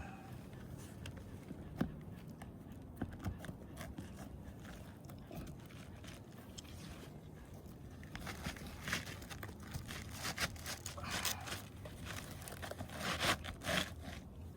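Asphalt roof shingles being lifted and their nails pried out: scattered scrapes, crunches and small clicks, busier in the second half.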